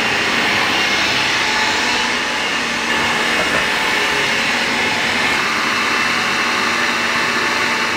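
Food processor running steadily, grinding Spanish mackerel (tenggiri) flesh with salt and sugar into a smooth, sticky paste.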